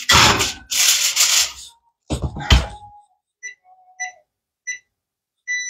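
A foil-covered baking pan goes into the oven with clattering and rustling, and the oven door shuts with a thud about two and a half seconds in. Four short electronic beeps follow, the last one a little longer, as a 10-minute timer is keyed in on the microwave's keypad.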